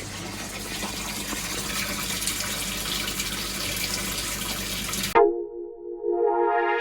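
Water running and splashing over a low steady hum for about five seconds. It cuts off suddenly and electronic music starts.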